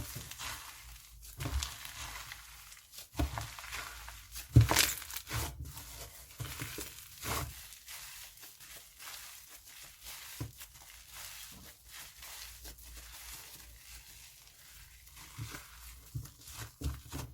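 Slime being squished and pulled by hand, making irregular crackling, clicking and popping sounds, with one louder pop about four and a half seconds in.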